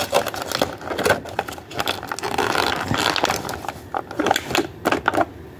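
Handling noise from small glass gel-polish bottles and their cardboard box: a run of light clicks and knocks, with a stretch of scraping and rustling about halfway through.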